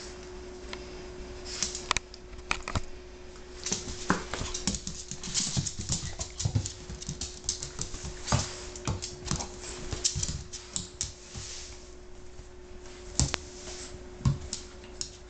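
A dog dragging a small dog's pet bed across the floor, with irregular scuffs, rustles and sharp clicks, busiest through the middle and thinning out near the end.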